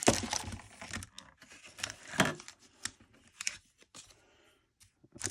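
Foil Pokémon booster packs and their plastic wrapping crinkling and tearing as they are handled, in irregular rustling bursts with a few sharp clicks, then quieter near the end.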